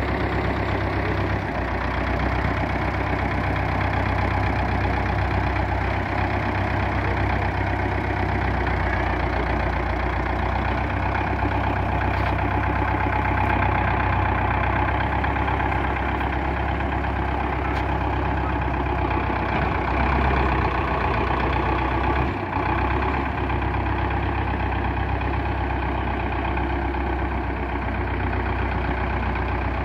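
Belarus 510 tractor's diesel engine running steadily as the tractor manoeuvres with its front loader.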